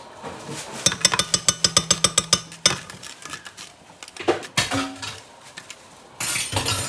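A fast run of sharp clicks and clinks, about seven a second for under two seconds, then a few separate knocks and a short, loud rush of noise near the end.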